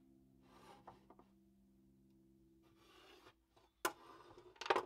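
Pencil scratching lines across a board against a steel rule, then the metal combination square and rule set down on the board with two sharp clacks near the end. Faint held music tones fade out underneath.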